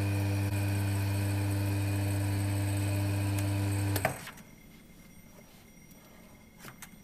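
Electric vacuum pump motor running with a steady hum, then switched off about four seconds in and cutting out quickly to a faint hiss. A few light clicks follow near the end as the pump's valve is handled.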